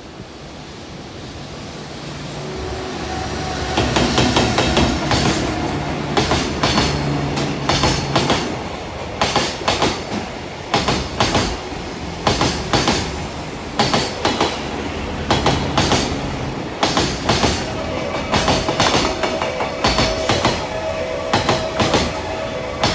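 JR Freight container train hauled by an EF210 electric locomotive passing: it grows louder over the first few seconds as it approaches, then the wagons' wheels clatter over the rail joints in steady rhythmic groups of clicks. A steady ringing tone joins in for the last few seconds.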